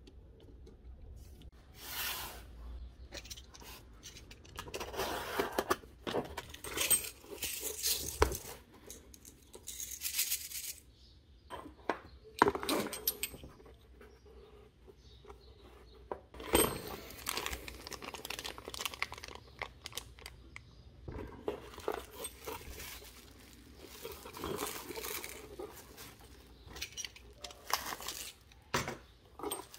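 A cardboard box being unpacked by hand: irregular bouts of tearing and crinkling from the cardboard and bubble wrap, with a few sharp clinks from small metal CO2 cartridges.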